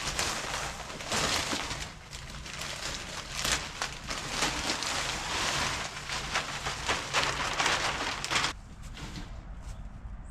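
Wood shavings for chicken bedding rustling and crackling as they are tipped out of their bag, stopping suddenly near the end.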